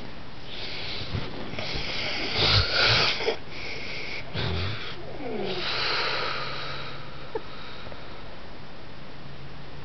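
A man snoring heavily in his sleep: breathy in-breaths with two low snorts in the first half, then a long hissing out-breath.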